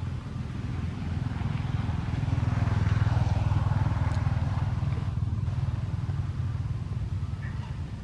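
A motor vehicle's engine running, growing louder from about a second and a half in, loudest around three to four seconds, then fading again as it passes.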